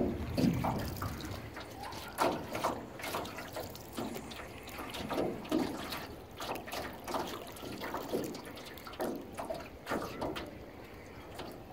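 Water splashing and trickling against the hull of an aluminum canoe moving on open water, in small irregular splashes.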